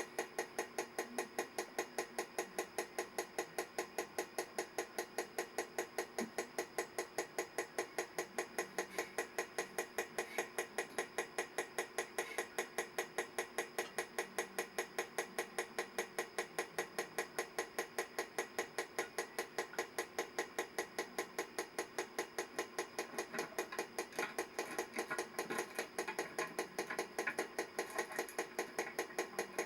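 Bulova ladies' mechanical wristwatch ticking steadily, about five ticks a second, its movement running after a full overhaul. Some extra irregular clicks and handling noise join in near the end.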